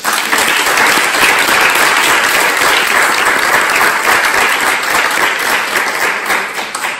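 Audience applauding: dense, steady clapping from many people that dies away near the end.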